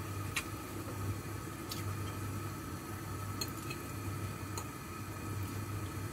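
Covered pot simmering on an electric cooktop: a steady low hum with a faint steady whine and soft bubbling, with a few light clinks scattered through.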